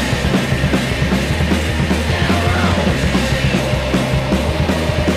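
Punk rock band playing loud and steady: a full band with a driving low end and a fast drum beat.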